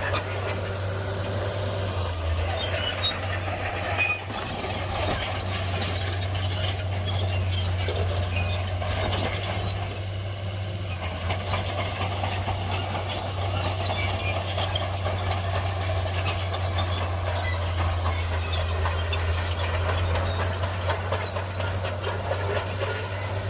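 Heavy crawler bulldozer at work: a steady low engine drone under a continuous clatter and scrape of tracks and rock.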